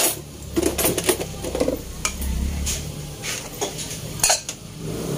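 Tableware clinking: spoons or utensils knocking against dishes and the pot in a series of about six sharp clinks, over a steady low hum.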